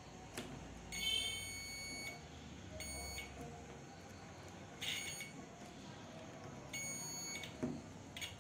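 A digital multimeter's continuity buzzer beeping on and off, about four times, some beeps about a second long and others brief, as the probes make and lose contact on the leads of a home theater's power transformer. The beeps mark continuity through the windings being tested.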